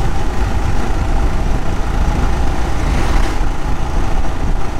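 Motorcycle riding along, its engine running under a heavy, steady rumble of wind on the microphone. About three seconds in, a brief rush of hiss swells and fades.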